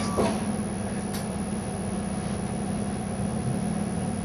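A steady low mechanical hum with one constant tone, like a running motor or engine, and a faint click or two near the start.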